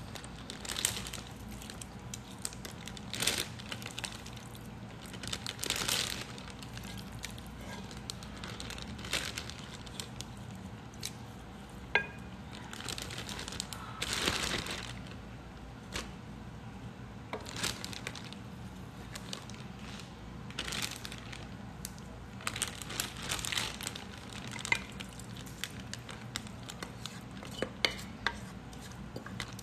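Plastic zipper storage bag rustling and crinkling in irregular handfuls as gloved hands load marinated pork ribs into it, with a few light knocks against a glass mixing bowl.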